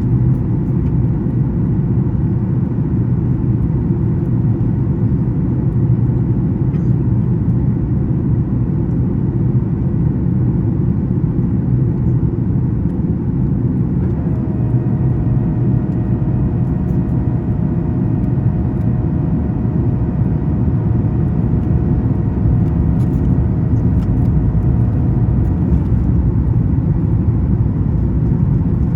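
Steady cabin noise of a Boeing 737 MAX 9 in flight: the low drone of its CFM LEAP-1B engines and rushing air. About halfway through, a steady whine joins in, and it stops a few seconds before the end.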